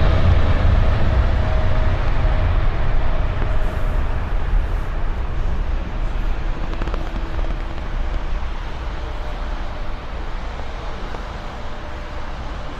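Jet airliner engines at takeoff power: a deep rumble with a faint whine that slowly fades away over road traffic noise.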